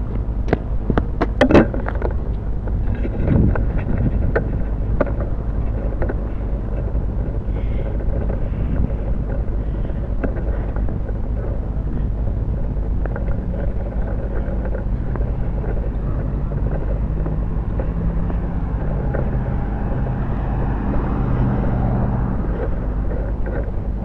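Steady low rumble of wind on the microphone, with a run of sharp clicks and knocks in the first few seconds as the quadcopter's camera is picked up and handled.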